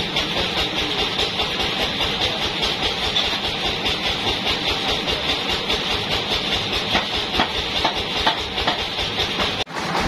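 Band sawmill running steadily without cutting: a continuous motor and blade hum with a hiss over it. A few light knocks come about three-quarters of the way in, and the sound drops out briefly just before the end.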